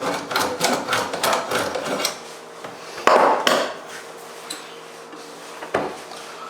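Deburring tool scraping around the inside of a cut water supply pipe's end in quick repeated strokes, with a louder scrape about three seconds in and a sharp click near the end.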